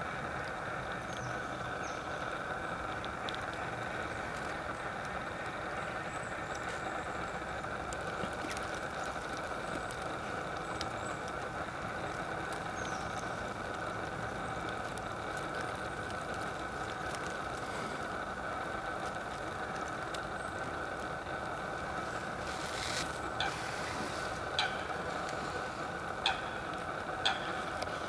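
Steady outdoor background hum and hiss, with a few short sharp clicks in the last few seconds.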